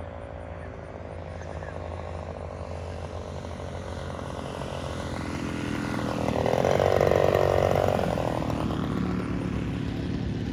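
Engine and propeller of a giant-scale RC Japanese Zero model airplane running steadily on its landing approach. It grows louder to a peak about seven seconds in as the plane comes down close past the field, then eases off.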